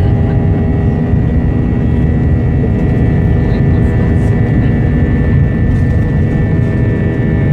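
Steady jet-engine hum and whine of an Airbus A320, heard inside the cabin as it taxis onto the runway, over a low rumble. The engines hold low taxi thrust and do not spool up.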